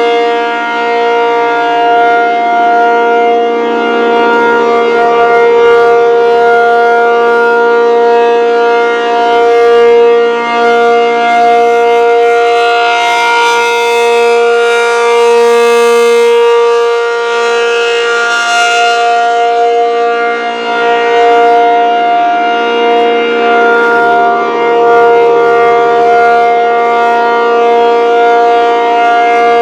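ASC T-135 outdoor warning siren sounding the full alert signal: one long steady tone with no rise and fall in pitch, its loudness slowly swelling and fading.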